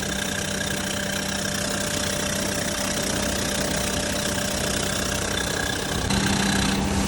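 Perodua Myvi engine idling with its accessory drive belt running, a steady hum. About six seconds in the sound gets louder and the steady low tone strengthens, as with a load such as the air-conditioning compressor coming on.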